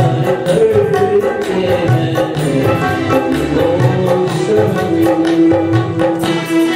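Live band playing an instrumental passage of a Hindi film song: tabla strokes keep a steady beat under a sustained melody line.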